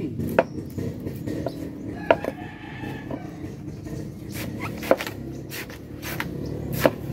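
Large knife chopping into a young green coconut's husk and meat on a wooden board: sharp knocks every second or two, with softer cutting and scraping between.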